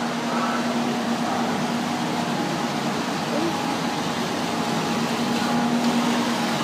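Steady mechanical hum with a constant low drone, under a faint haze of indistinct voices: indoor aquarium ambience.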